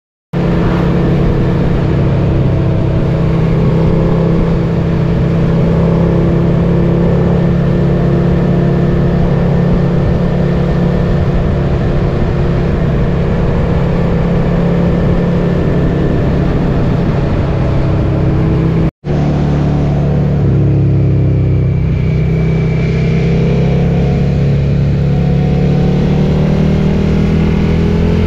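Suzuki SV650X's 645 cc V-twin engine through a Scorpion Red Power exhaust, running at steady cruising revs while riding. The sound cuts out for an instant about two-thirds of the way through, then the revs rise and fall.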